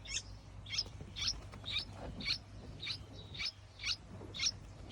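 Small bird giving a quick series of short, high chirps, about two a second, evenly spaced.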